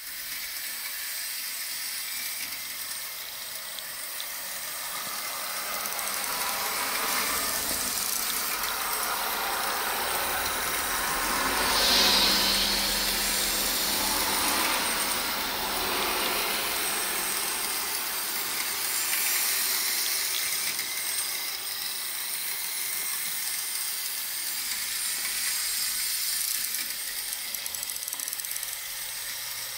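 Steady hissing noise in a stationary bus's cabin, swelling and easing, loudest about twelve seconds in.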